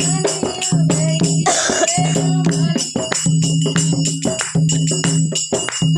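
Dholak playing a fast, driving bhajan rhythm in an instrumental break, under steady held low notes, with a shaken jingling burst of tambourine-like percussion about a second and a half in.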